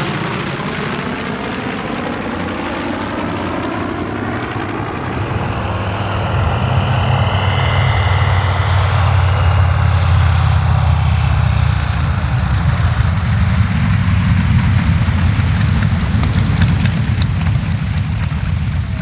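Piston-engine propeller aircraft passing overhead in formation, then a North American T-28B Trojan's Wright R-1820 nine-cylinder radial engine running at low power as it lands and taxis, its low rumble growing louder about six seconds in.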